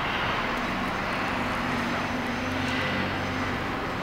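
Diesel engine of a rear-loader compactor garbage truck running as the truck rolls slowly forward, its pitch rising slightly during the first half.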